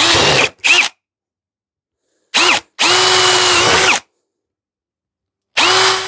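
Electric drill with a large bit drilling holes in aluminium, run in several short bursts of under a second up to about a second and a half, its motor whine rising as it spins up each time and stopping abruptly.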